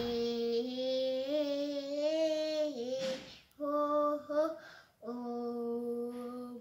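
A young boy singing vocal-exercise notes: a long held note of about three seconds, a quick breath in, then a short note and a second long held note, each at a fairly steady pitch.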